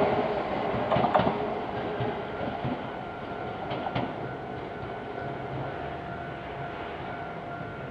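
Iyotetsu 610 series electric train running away after passing close by, its wheels clicking over rail joints a few times as the running noise fades. A faint steady high tone comes in about three seconds in.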